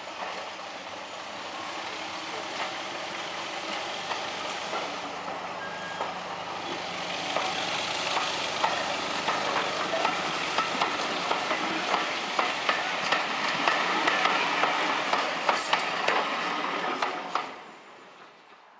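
A rake of British Rail Mark 1 passenger coaches rolling past. The wheels rumble on the rails with a run of regular clicks as they cross the rail joints. The sound falls away quickly near the end as the last coach passes.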